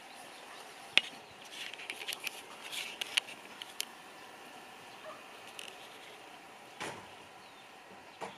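Handling noise close to the microphone over quiet outdoor background. There is a sharp click about a second in, then a cluster of small clicks and rustles over the next few seconds, and a dull thump and a short knock near the end.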